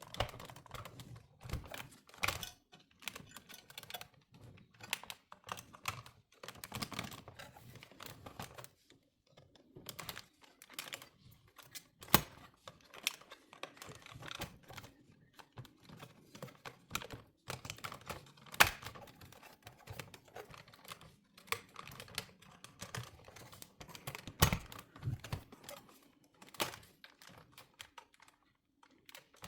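Irregular plastic clicks and knocks as the dashboard head unit and its plastic trim are worked loose from their retaining clips, with a few sharper snaps.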